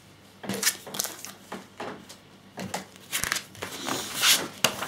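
Pages of a glossy instruction magazine being turned and flattened by hand: a string of short paper rustles and crinkles, loudest about four seconds in.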